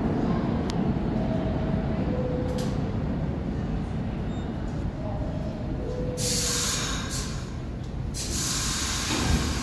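New York City subway trains rumbling in an underground station. Two long hisses of air come in over the rumble, one about six seconds in and another just before the end.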